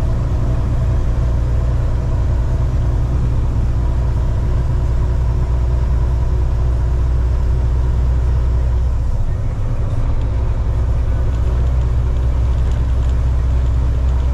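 Semi-truck engine and road noise droning steadily inside the cab while cruising on the highway, with a brief dip in the low rumble about nine seconds in.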